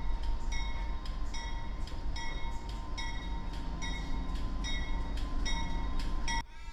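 Train sound with a steady low rumble and regular ringing strokes that come in pairs a little under a second apart, cut off suddenly near the end.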